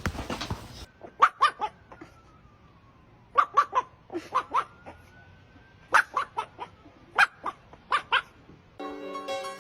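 A dog barking in short, high yips that come in quick runs of two to four, with pauses between the runs. Harpsichord music starts near the end.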